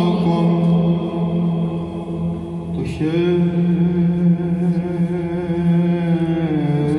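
Orthodox male choir singing Byzantine chant a capella: a low held drone (ison) under an ornamented melody line. The melody breaks off briefly about three seconds in and steps down near the end.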